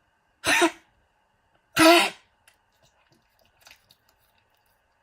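Dog coughing: two loud coughs about a second and a half apart, then a faint one near the end.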